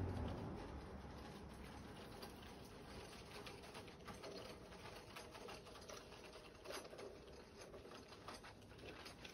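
Faint, irregular clicking and pattering from an approaching garden-railway train's wheels running over the track, growing busier as it comes nearer. A low rumble fades out at the very start.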